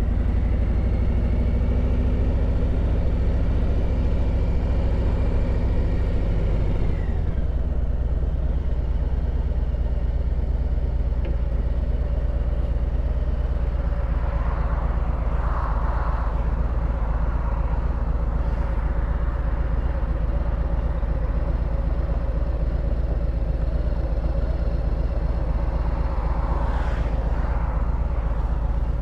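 Harley-Davidson Road Glide Limited's V-twin engine running steadily under a strong low rumble; its note shifts about seven seconds in.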